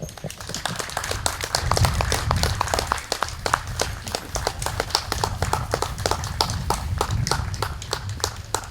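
A small crowd applauding, with individual hand claps standing out, dwindling a little toward the end.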